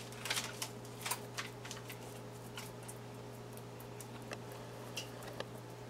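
Faint, scattered light clicks and taps from hands handling spare ribs in a baking pan, over a steady low hum.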